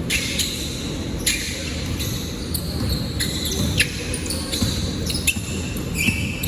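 Basketball game sounds in a gym: many short, high sneaker squeaks on the court and the ball bouncing, over a steady low hubbub.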